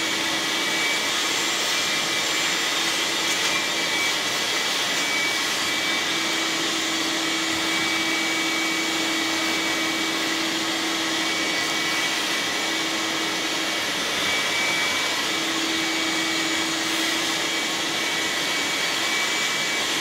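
Shop vacuum running steadily, its hose sucking packed dirt and nesting debris out of a lawn tractor engine's plugged cylinder cooling fins. A steady tone in its whine comes and goes as the nozzle moves over the debris.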